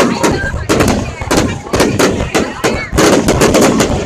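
Fireworks display: aerial shells and crackers bursting in a rapid, dense barrage of sharp bangs, several a second, with a brief lull near the end.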